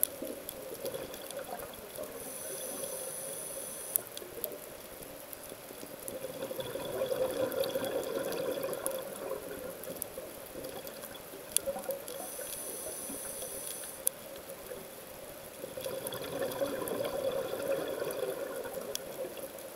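Scuba diver breathing through a regulator underwater: a hissing inhale about two seconds in and again about twelve seconds in, each followed by a longer rush of exhaled bubbles. Scattered sharp clicks run through it.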